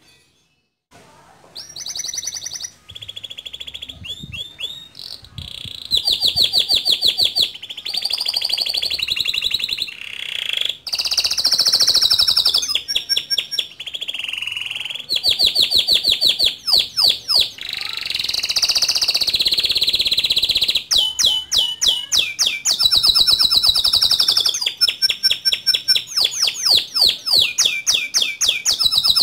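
Male domestic canary singing loudly, starting about a second in: long rolling trills of fast repeated notes alternating with sharp, sweeping high notes. It is the full, continuous song of a bird in top singing form, the kind used as a tutor song for young canaries.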